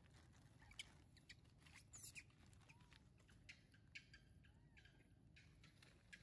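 Near silence with faint, scattered clicks and rustles, a little louder about two and four seconds in, and two faint short chirps.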